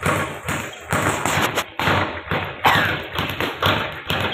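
Punches landing on a double-end bag: an irregular run of thuds and taps as the ball is struck and rebounds on its cords.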